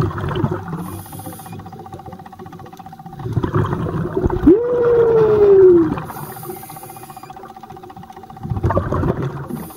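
Scuba diver breathing through a regulator underwater: hissing inhalations alternating with long rumbles of exhaled bubbles. About halfway through, during an exhale, a clear tone rises sharply and then slowly falls.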